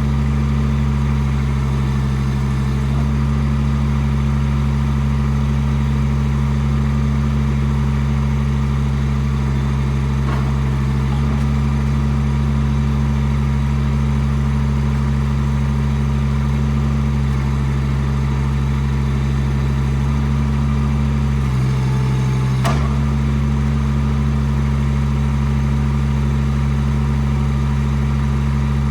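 Chinese mini excavator's engine running steadily while its hydraulics are worked through boom and arm movements. The engine note shifts slightly a few times and dips briefly under load about three quarters of the way through, ending with a sharp click.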